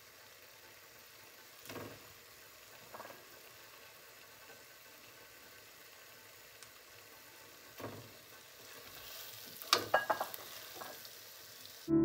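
Faint, steady sizzle of a simmering beef-jerky (kuanta) sauce in a steel pan, with a few soft knocks as peeled boiled eggs are slit with a knife and set into it.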